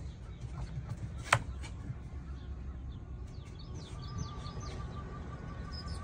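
A sharp click, then about four seconds in the RV's electric awning motor starts a steady whine as it retracts the awning. Birds chirp over a low rumble.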